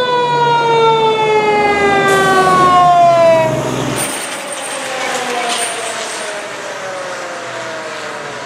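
Fire engine siren winding down in one long, slowly falling wail, loud at first and fading after about four seconds. The truck's engine rumbles underneath as it passes close by.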